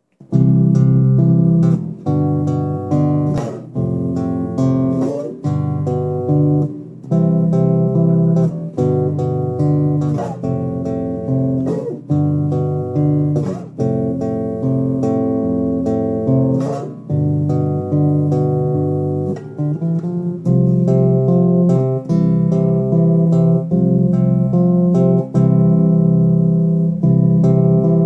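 Bass guitar played fingerstyle as a solo instrument, plucking a slow melody over chords and low bass notes, each note ringing on.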